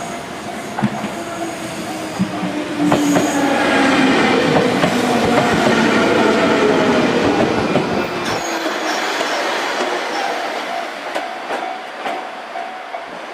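205 series electric multiple unit passing over a level crossing as it slows toward its terminus: wheel clacks over the rail joints, then the loudest stretch of running noise with a gently falling whine, which drops away after about eight seconds.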